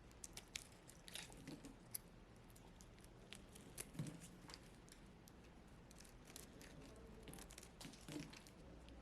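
Dry, brittle block crunching and crackling as it is broken up. It gives quiet, irregular sharp crackles, with a louder crunch about four seconds in.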